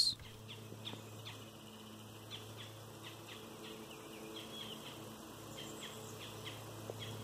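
Repeated short bird chirps over a steady low hum.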